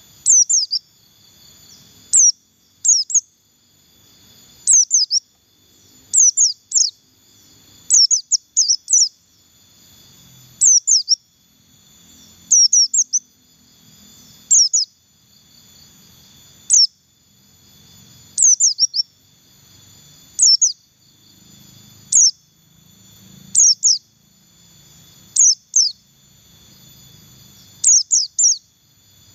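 White-eye (pleci buxtoni) singing its 'ngalas' song: short bursts of one to four quick, high notes, each sweeping downward, repeated about every one and a half to two seconds. A faint steady high hum runs underneath.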